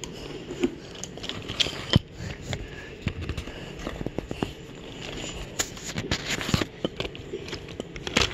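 Wooden Brio toy train being pushed along wooden track, with irregular clicks and knocks from its wheels and wooden pieces, a few louder ones about two seconds in and again past the middle.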